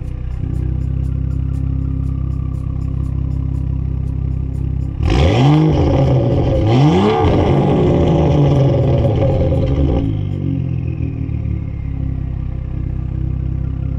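BMW F30 335i's turbocharged 3.0-litre inline-six, running through a catless downpipe and a muffler-deleted exhaust that is essentially a straight pipe, idles, then is blipped twice in quick succession about five seconds in. A loud rough exhaust noise follows until about ten seconds in, and then it settles back to a steady idle.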